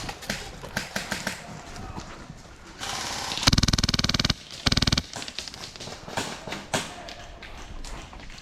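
An airsoft gun firing on full auto: a burst of just under a second, then a shorter burst half a second later, each a rapid, even rattle of shots. Scattered single sharp pops and clicks from other shots come before and after.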